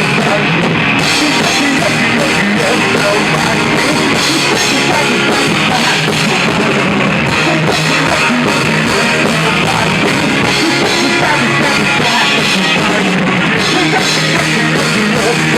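Rock band playing live with drum kit and guitars, loud and continuous, in an instrumental stretch between sung lines.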